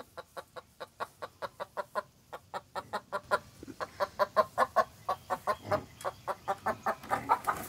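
A hen clucking in a rapid, steady run of short calls, about four or five a second, getting louder about halfway through.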